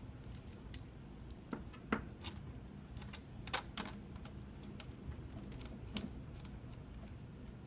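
Scattered light clicks and taps of a screwdriver and plastic parts while screws are driven into the main board of a Kronos 4500 time clock, a few of them louder.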